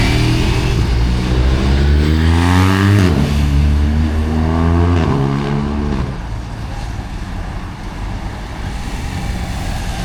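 A motor vehicle's engine accelerating, its pitch climbing and then dropping twice as it shifts up through the gears. After about six seconds it fades, leaving a steady rushing noise.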